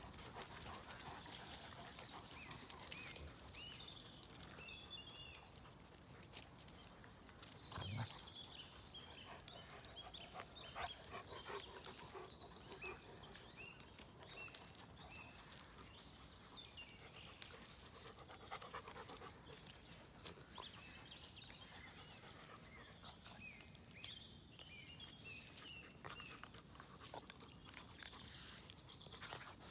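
Quiet sounds of dogs playing on grass, with panting. About eight seconds in comes a brief louder low sound, and faint short high chirps come and go throughout.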